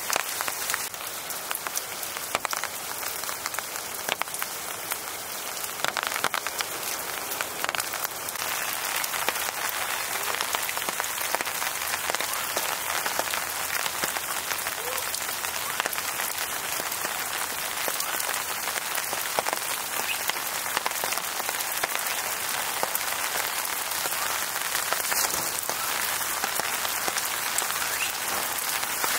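Steady rain falling, a dense patter of individual drops with no letting up.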